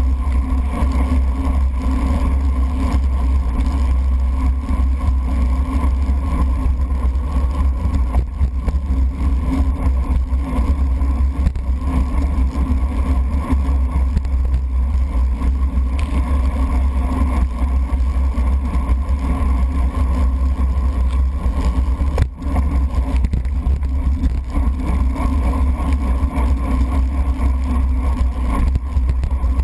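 Steady low rumble of wind and road vibration on a bicycle-mounted GoPro in its sealed waterproof case, riding on a wet road. The level drops for an instant about three quarters of the way through.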